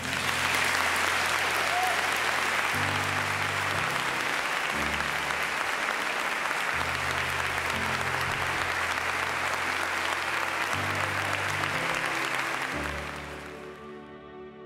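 Audience applauding over slow background music with sustained low notes; the applause fades out near the end, leaving the music.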